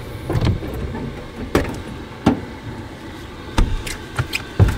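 Scattered knocks, thumps and rustling from someone shifting about and handling gear in a cramped truck-cap camper, with a low steady rumble underneath.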